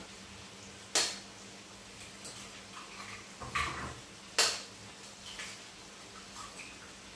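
Eggs being cracked against the rim of a bowl: two sharp taps about a second in and about four and a half seconds in, with softer clinks of shell and dish between.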